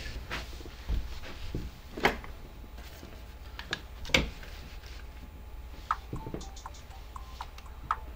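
Room tone with a steady low hum and scattered short knocks and clicks, two louder ones about two and four seconds in. Faint short tones come in over the last two seconds.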